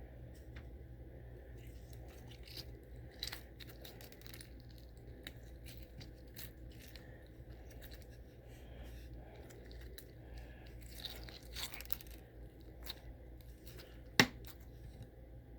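Slime being squeezed and worked by hand, with scattered soft crackles and clicks from the add-ins mixed into it, and one sharp click near the end.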